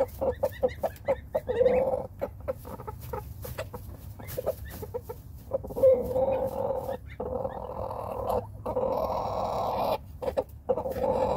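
Rooster making low clucking calls while nestled in a hay-filled nesting box: a quick run of short clucks in the first two seconds, then scattered clucks and longer low calls, with sharp clicks between them.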